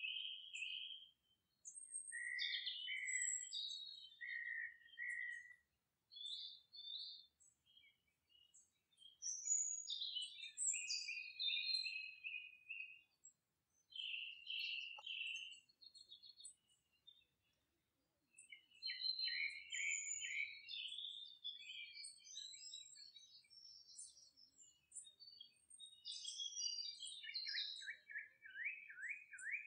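Wild birds chirping and singing: short, varied whistled phrases and chirps with pauses between them, ending in a quick run of repeated falling notes.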